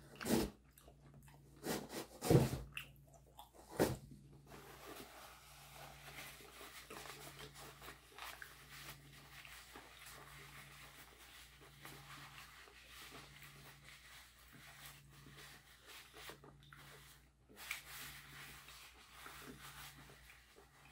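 Biting and chewing crispy chicharon bulaklak (deep-fried pork mesentery): four loud crunches in the first four seconds, then quieter chewing.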